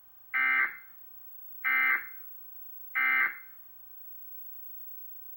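Emergency Alert System end-of-message (EOM) data tones: three short bursts of digital data, each about half a second long and starting about 1.3 seconds apart. They mark the end of the alert.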